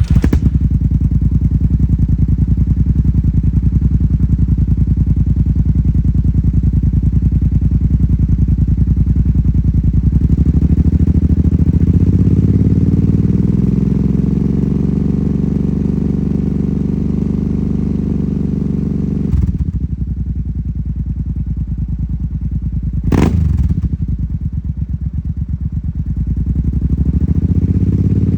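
Kawasaki KFX 700 ATV's V-twin engine, fitted with dual Yoshimura exhausts, running at idle just after starting. Its speed rises a little about ten seconds in and drops briefly near twenty seconds. A short sharp blip follows a few seconds later, and the speed rises again near the end.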